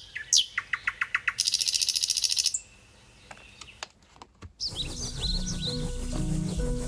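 Nightingale song: a few quick chirps, then a fast rattling trill for about a second that stops about two and a half seconds in. After a short lull, gentle music with bell-like notes begins near the end.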